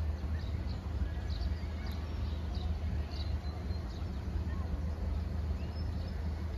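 Outdoor background: a steady low rumble with faint short high chirps from small birds scattered through it.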